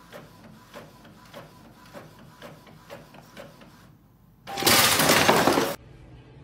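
Inkjet printer printing, its carriage and paper feed ticking evenly about three times a second. About four and a half seconds in, a loud harsh noise lasting just over a second.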